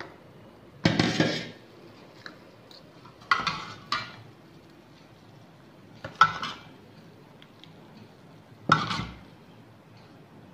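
Stainless steel slotted spoon clinking and scraping against a stainless steel bowl as fried khaja pastries are put into and turned in sugar syrup: about five sharp knocks a couple of seconds apart, some in quick pairs, each with a short ring.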